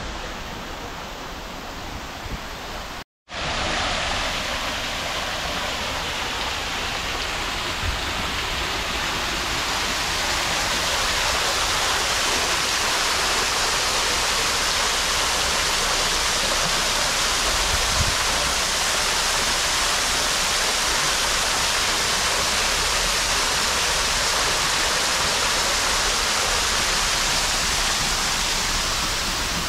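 Artificial rock waterfall: water pouring and splashing steadily into a shallow pool and spilling over a stone ledge. The sound cuts out for a moment about three seconds in, then comes back and grows louder.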